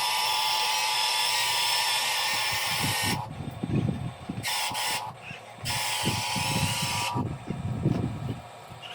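Electric drive motors and gearboxes of an RC bulldozer whining in bursts: one long run, then two shorter ones, with irregular low knocking and rumbling in the second half.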